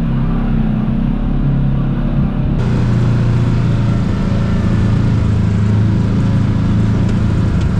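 Kawasaki KRX 1000 side-by-side's parallel-twin engine running steadily while the vehicle crawls along a rough trail, heard from the cab; the sound shifts about two and a half seconds in.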